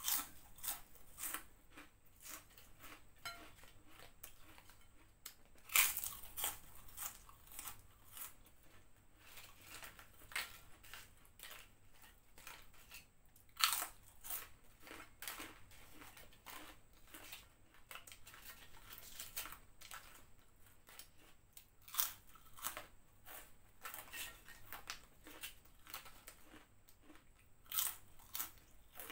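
Fried prawn crackers (kerupuk udang) bitten and chewed close to a clip-on microphone: crisp, irregular crunching, with a few much louder bites scattered through.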